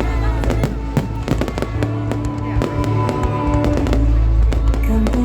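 Fireworks bursting in quick succession, many sharp bangs and crackles, over loud music with a heavy bass.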